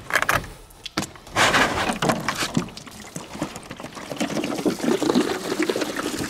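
A few short clicks as the cap of a plastic gallon water jug is handled, then water pouring out of the jug and splashing onto a flat surface, starting about a second and a half in.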